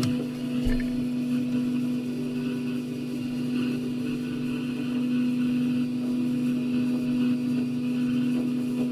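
A small electric motor or fan humming steadily on one low tone, with a faint knock about a second in.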